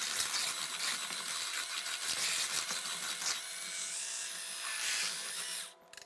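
HomeSmart cordless USB-rechargeable hand mixer's small motor whirring steadily while its wire whisk beats a thin milk, gelatin and pudding mixture in a bowl, with a hissing, sloshing whisk sound. The sound cuts out abruptly near the end.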